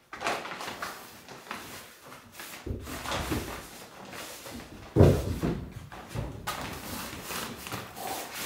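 Silver plastic tarp rustling and crinkling in irregular bursts as it is folded and tucked around a wooden frame, with a sudden thump about five seconds in.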